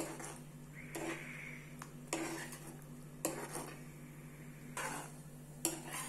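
Metal spoon stirring thick milk in a non-stick kadai, clinking and scraping against the pan about once a second.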